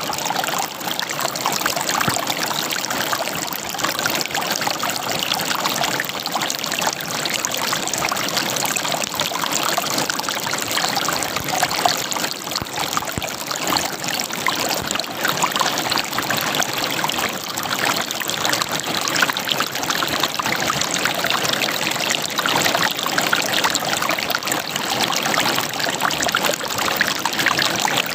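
River water running and gurgling over rocks: a steady rush full of small, constant splashes and bubbling.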